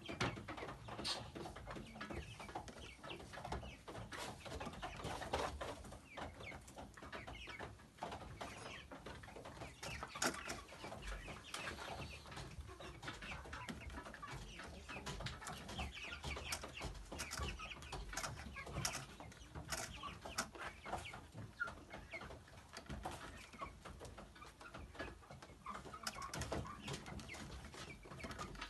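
Chickens clucking, with many scattered sharp taps and clicks among the calls.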